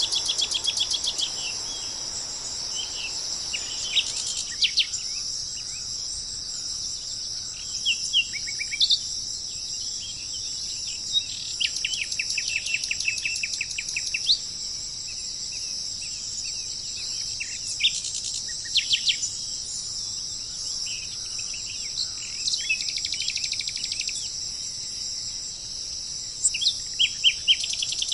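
Steady high-pitched insect drone, like a cricket chorus, with several wild birds calling over it: scattered short chirps and rapid trills, the longest trills near the start and around the middle.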